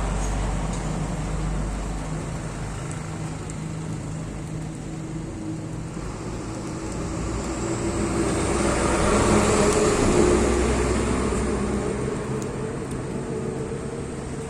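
Motor vehicle noise: a steady low hum, with a vehicle swelling to its loudest about two-thirds of the way through and then fading.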